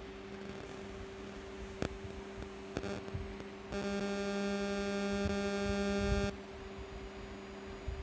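Steady electrical mains hum from the microwave test bench electronics. About four seconds in it swells into a louder, buzzier tone that holds for about two and a half seconds, then cuts off suddenly. A couple of faint clicks come earlier.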